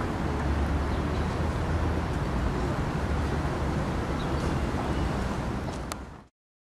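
Steady outdoor city ambience with a deep low rumble, fading out and cutting to silence about six seconds in.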